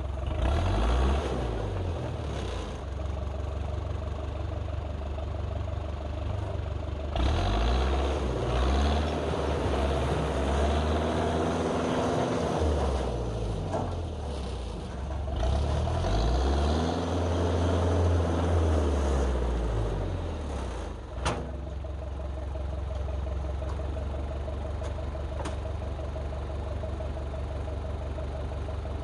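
Dresser 100G track loader's diesel engine running, revving up and easing back down several times as the machine works. A single sharp clank comes about three quarters of the way through, and after it the engine settles into a steady idle.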